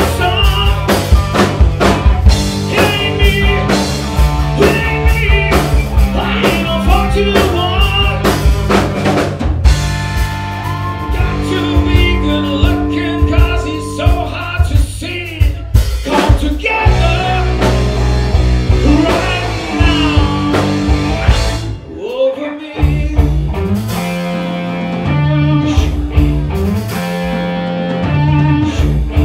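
Live rock band playing: vocals over electric guitar, bass and drum kit. The singing is in the first part, followed by an instrumental stretch with held notes and a short break about three-quarters of the way through.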